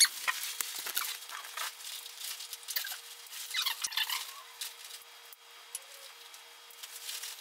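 Nylon webbing straps and plastic buckles of a heavily loaded backpack rustling and scraping as the pack is strapped on and pulled tight, in scattered short bursts with a busier stretch of strap pulling about four seconds in.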